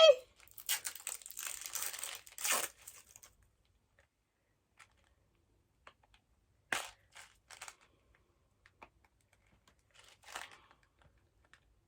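A snack packet being torn open and crinkled for a couple of seconds, then a few faint rustles and small clicks.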